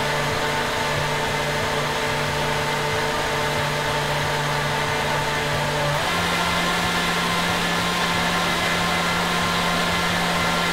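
Countertop blender motor running steadily, blending a green smoothie of greens, fruit and water. Its steady hum steps up slightly in pitch about six seconds in.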